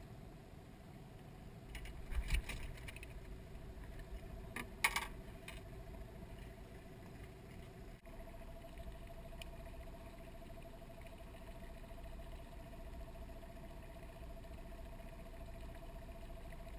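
Short bursts of clatter about two and five seconds in as a mangrove jack is worked off a Threadybuster lure's hooks inside a mesh landing net, over a steady low hum that runs throughout.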